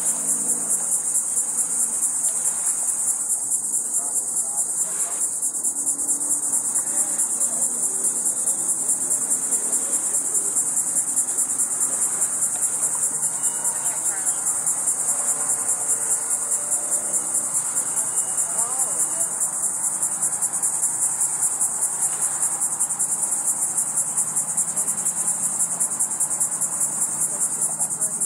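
A steady, high-pitched chorus of insects trilling with a rapid pulse.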